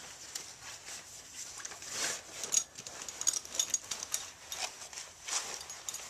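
Irregular light clicks, taps and scrapes of small metal screws and parts being handled and set into a metal stock waterer.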